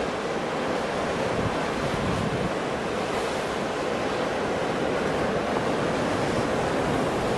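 Strong wind blowing steadily and buffeting the microphone, a constant rushing noise with no breaks.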